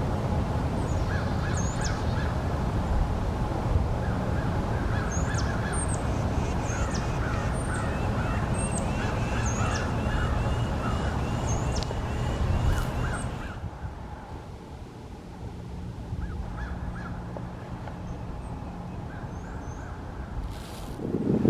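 Hooded mergansers calling in courtship display, a run of repeated croaking calls with high down-slurred notes over them. The calling stops about two-thirds of the way through, leaving a quieter stretch with only a few calls.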